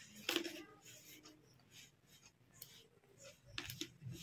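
A hand mixing flour and water into dough in a steel bowl: faint, irregular rubbing and scraping of the flour against the bowl, a little louder about a third of a second in and again near the end.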